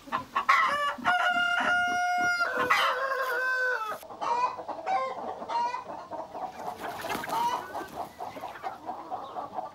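Domestic chickens in a farmyard: a rooster crows once, about a second in, then hens cluck over and over.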